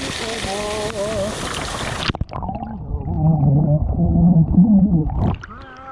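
Waterfall pouring down with a man's voice in long, wavering held tones over it. About two seconds in, the sound turns suddenly deep and muffled, as with a waterproof camera under the falling water, and it partly clears near the end.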